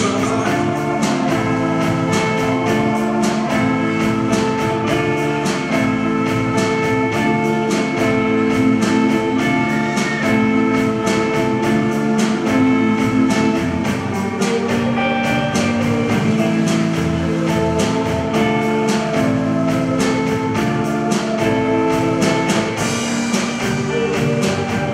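Live rock band playing an instrumental passage: electric guitar over bass and a drum kit keeping a steady beat.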